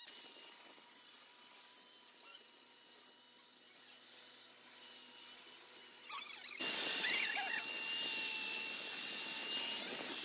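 Handheld angle grinder with a thin disc cutting into a motorcycle's steel frame: a steady high whine over the hiss of grinding metal. It becomes suddenly much louder about six and a half seconds in.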